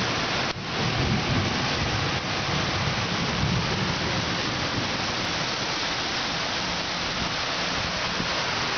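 Heavy thunderstorm rain pouring steadily, with a low rumble in the first few seconds.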